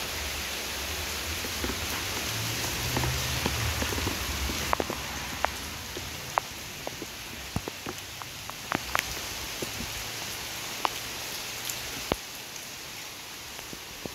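Heavy rain falling on foliage and wet paving, a steady hiss with scattered louder drips striking close by, most of them after about five seconds. A low rumble runs under the rain for the first five seconds.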